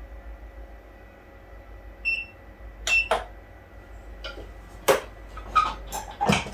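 A heat press being handled: a short electronic beep, then a series of sharp plastic-and-metal clunks and knocks as the journal is loaded and the press is worked by hand.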